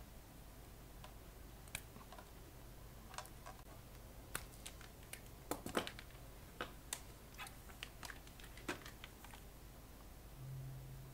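Scattered light clicks and taps of pliers and twisted heater wire being handled against a bare aluminium amplifier chassis, irregular and thickest in the middle. A faint steady low hum runs under them and grows slightly louder near the end.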